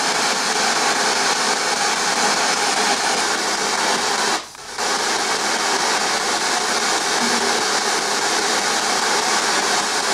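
Spirit box sweeping through radio stations, giving a steady loud hiss of static that cuts out briefly a little over four seconds in.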